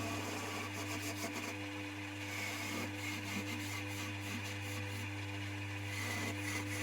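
Coronet 1 woodturning lathe's electric motor running steadily with the workpiece spinning: a low, even hum.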